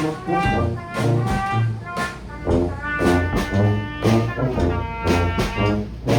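Street brass band playing an upbeat tune: horns carrying the melody over a low bass line, with a drum beat about twice a second.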